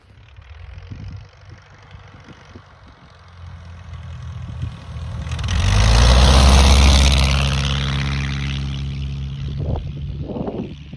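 Engine and propeller of a light single-engine airplane, faint at first, growing loudest as it passes close about six seconds in, then slowly fading.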